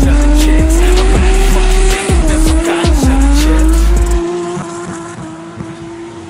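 Drift car's engine held at high revs with its tyres squealing through a slide, the revs dipping briefly twice, then the sound fades as the car moves away.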